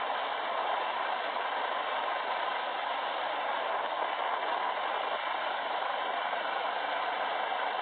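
Rescue helicopter climbing away overhead, its engine and rotor noise heard as a steady, even rush.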